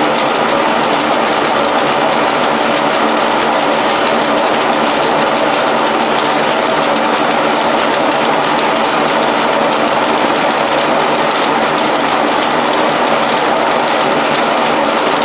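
Dense, steady clatter of many Lancashire cotton power looms weaving at once, the rapid clacks of their shuttles and picking sticks overlapping into one continuous din.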